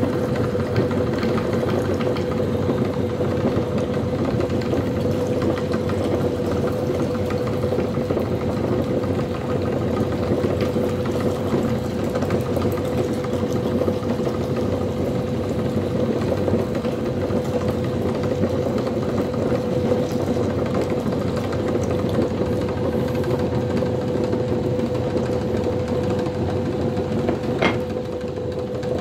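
Motor-driven metal meat grinder running steadily as it grinds tomato pieces into pulp. It makes a constant mechanical hum with one unchanging whining tone.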